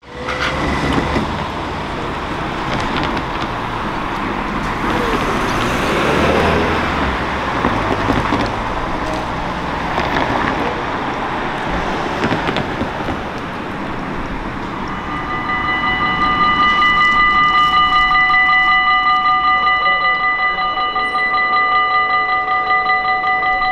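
Cars driving past over a level crossing; about two-thirds of the way through, the crossing's warning bells start ringing, a fast, even, high-pitched ringing that goes on as the barriers lower for an approaching train.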